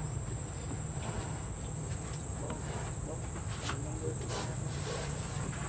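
Steady, high-pitched insect drone, one unbroken tone, over a low background rumble with a few faint clicks.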